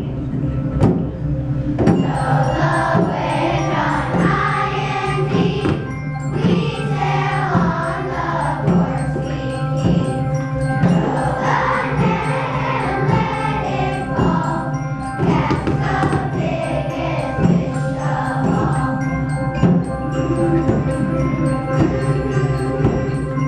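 Children's choir singing a song with instrumental accompaniment: held low notes under the voices and a steady beat of soft knocks.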